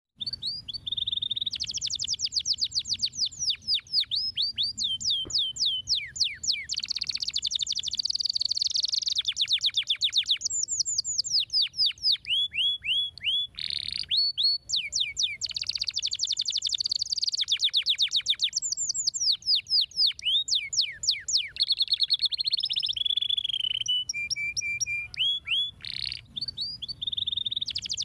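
Domestic canary singing a long, unbroken song of fast trills: rapid runs of repeated high notes, each sweeping downward, switching from one trill to the next every second or two.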